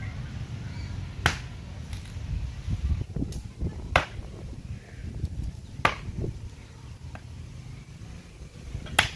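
An axe chopping firewood: four sharp strikes of the blade on wood, spaced two to three seconds apart, with a fainter knock between the third and fourth.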